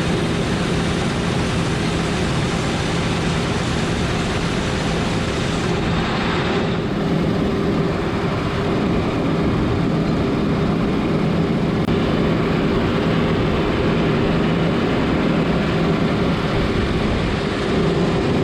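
Combine harvester running steadily at work: a loud, even mechanical drone with a constant hum.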